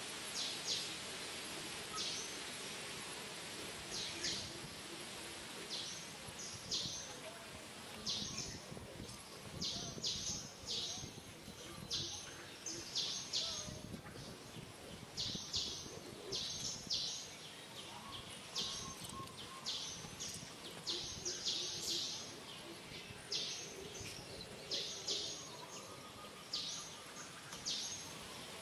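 Small birds chirping over steady outdoor background noise: short high chirps, often two or three together, repeat every second or two.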